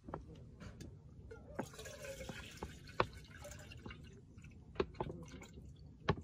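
Water poured from a soft plastic water bottle into a Jetboil cooking cup, running and dripping into the cup. A few sharp clicks come through, the loudest about three seconds in and just before the end.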